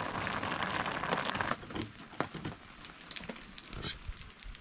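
Plastic pasta packet crinkling as dry spiral pasta is tipped into a pot of boiling water, stopping suddenly about a second and a half in; scattered faint ticks and crackles follow.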